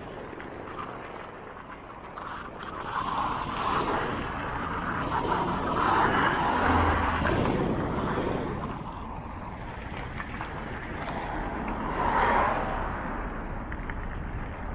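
Road traffic: cars passing close by one after another, their tyre and engine noise swelling and fading. It is loudest about six to eight seconds in and again about twelve seconds in.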